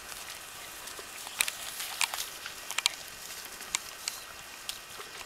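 Miniature schnauzer puppies' paws pattering and splashing through wet grass and shallow pond water: scattered light patters and splashes over a faint outdoor hiss.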